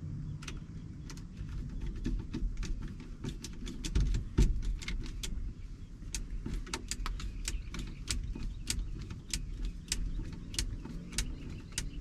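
Screwdriver and small metal parts clicking and tapping on a 1983 Chevy C10's opened steering column as the turn signal lever is fitted and screwed back in: a run of irregular sharp clicks, a few a second, over a low steady rumble.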